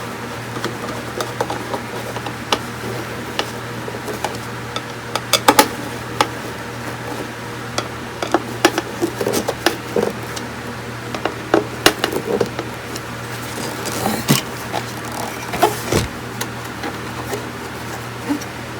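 Scattered light clicks and knocks of tools and small parts being handled during bench repair of the equipment's power supply board, over a steady low hum.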